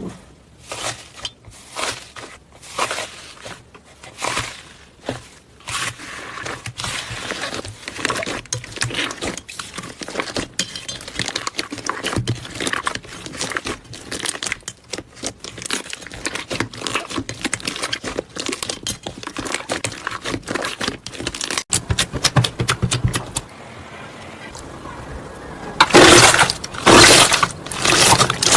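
Slime being squeezed and worked by hand. It starts as separate short squishes, one or two a second, then runs into a dense stream of small sticky pops. Louder squishes come near the end.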